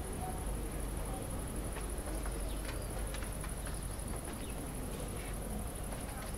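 Insects trilling steadily at a high pitch, with a few faint light clicks scattered through.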